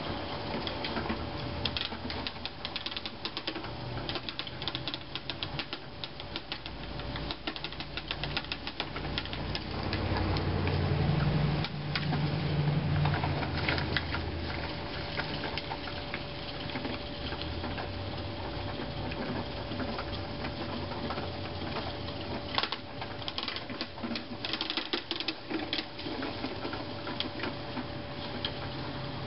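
Push broadcast spreader ticking rapidly as it is wheeled over bare soil, its spinner scattering grass seed; louder as it passes close by about halfway through.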